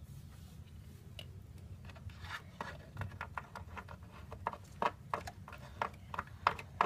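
Plastic Playmobil figures and small accessories clicking and tapping on the wooden floor of a dollhouse as they are handled. The taps come quicker and louder from about halfway, reaching two or three a second near the end.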